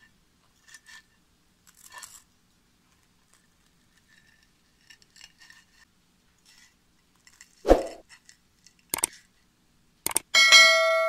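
A fork scrapes and taps against a ceramic plate while cutting through a crisp breaded cutlet, with faint ticks and crunches. There is a thump about two-thirds of the way through, then a few sharp mouse-click sounds and a loud ringing bell chime near the end: the sound effect of a subscribe-button animation.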